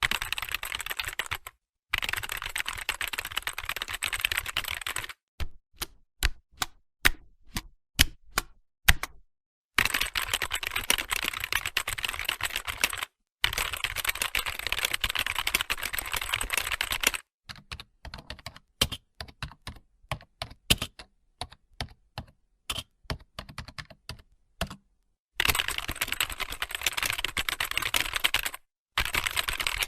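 Typing on a computer keyboard: fast, continuous runs of key clicks alternating with stretches of slower, separate keystrokes, the passages cut off abruptly by brief dead silences.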